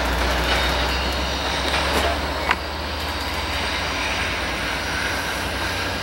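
Siemens SC-44 Charger-led passenger train rolling past, with a steady low diesel engine hum and the noise of the wheels on the rails. A few sharp clicks of wheels crossing rail joints, the loudest about two and a half seconds in.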